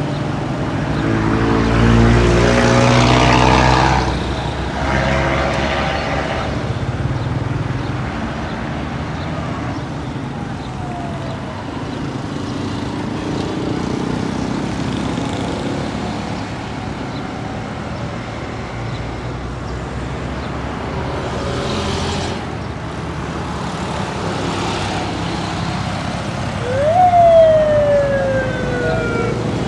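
Road traffic passing: motorcycles and auto-rickshaws, their engines rising and falling as they go by, loudest in the first few seconds. Near the end a loud horn-like tone slides down in pitch.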